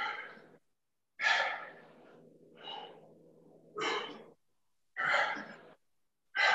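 A man breathing hard during kettlebell clean and presses: five sharp, forceful breaths, about one every second and a quarter, in time with the reps.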